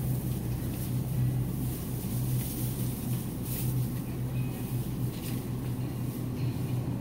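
Grocery store room tone: a steady low mechanical hum, the kind made by refrigeration or ventilation equipment, over a faint background hiss.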